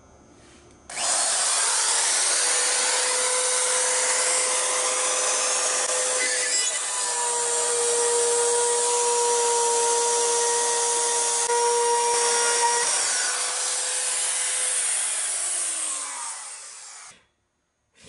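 RotoZip spiral saw starting up about a second in and cutting through a boat's fiberglass gunwale, a steady high motor whine over the grinding of the bit. Near the end the whine falls in pitch as the tool winds down, and the sound stops suddenly.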